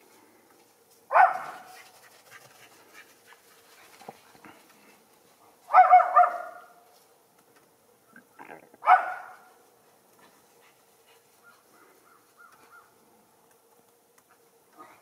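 Schipperke dog barking in short, sharp barks: one about a second in, a quick cluster of two or three around six seconds, and one more near nine seconds.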